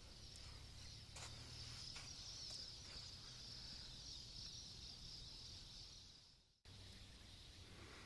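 Faint, steady high-pitched insect chirring over a low wind rumble on the microphone, with a brief cut-out about six and a half seconds in.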